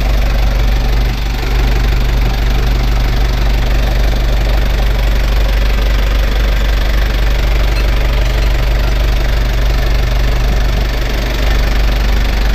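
Freshly rebuilt diesel engine idling steadily, on its first run after the rebuild; it started on the first crank.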